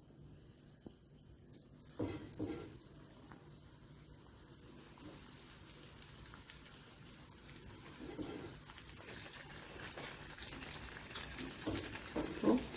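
Cornflake-coated potato and cheese balls deep-frying in hot oil: sizzling with fine crackles that slowly grows louder, after a short knock about two seconds in.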